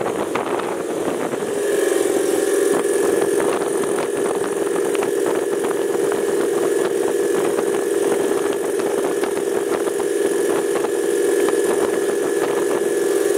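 An engine running steadily with a constant hum and a dense rapid clatter on top; the hum drops back briefly in the first second or two, then holds steady.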